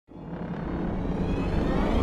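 Opening swell of an intro jingle: a low rumbling build that rises out of silence and grows steadily louder, leading into theme music.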